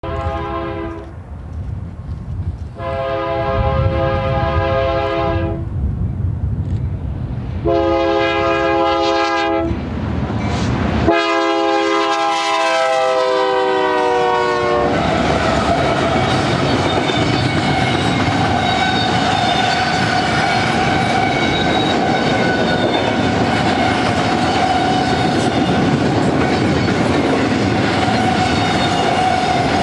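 BNSF GE C44-9W diesel locomotive's air horn sounding a series of blasts at a grade crossing, ending in the long, long, short, long crossing pattern; the last long blast drops in pitch as the locomotive passes. Then the double-stack container cars roll by with a steady rumble and clickety-clack, a steady ringing tone running over it.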